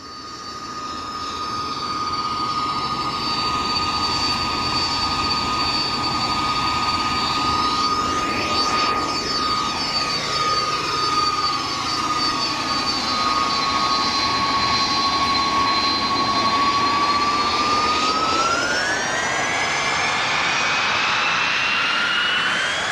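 Jet aircraft engines fading in and running with a steady turbine whine over a broad rush, the whine rising in pitch from about three-quarters of the way through as the engines spool up to accelerate for takeoff.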